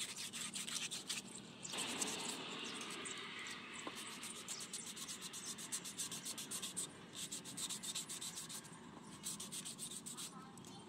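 Hand sanding on a handmade knife: quick, even back-and-forth rubbing strokes of abrasive against the steel and wood.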